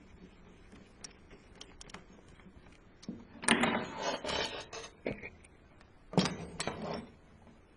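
Hands fitting parts onto a homemade crossbow: scattered light clicks and taps, then two bursts of clattering and scraping, the first about three seconds in and the second near the end.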